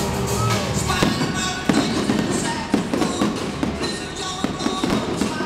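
Fireworks going off in several sharp bangs over music playing throughout.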